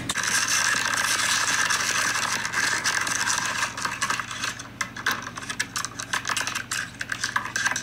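Plastic blister packaging crinkling and crackling in a dense run of small clicks as hands work a diecast toy car free of its pack.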